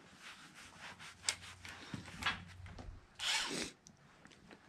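Faint rubbing and rustling of clothing and hands handling tools, with a few light clicks and a short, louder rustle about three seconds in.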